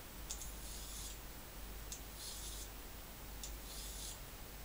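Mercator K55K folding knife blade drawn through the medium-grit upper V-slot of a two-stage pull-through sharpener, three strokes about a second and a half apart. Each stroke starts with a light tick as the blade enters the slot and goes on as a short, high scraping rasp.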